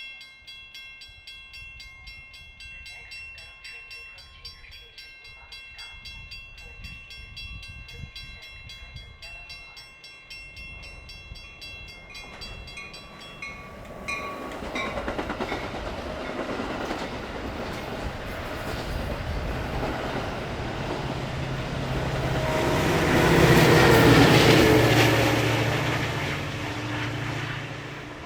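Metra commuter train's diesel locomotive: at first a steady high whine over a low idle rumble. About halfway through the engine noise swells into a loud, heavy rumble as the locomotive works hard, loudest a few seconds before the end, then eases off.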